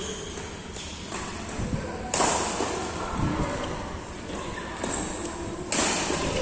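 Badminton rackets striking the shuttlecock in a rally, about four sharp hits a second or more apart, with voices in the background.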